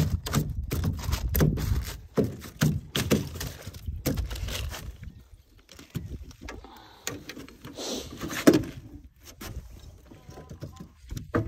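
Irregular knocks and thumps on an aluminum boat floor as a just-caught small carp is handled there in a plastic bag, thickest in the first four seconds and sparser after.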